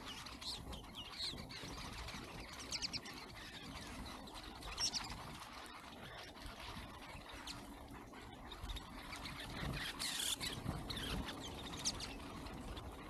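A flock of snow buntings calling as they feed and flit about, with many short chirps overlapping and coming in scattered bunches throughout.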